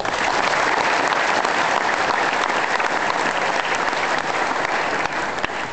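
Audience applauding: the clapping starts suddenly and dies away near the end.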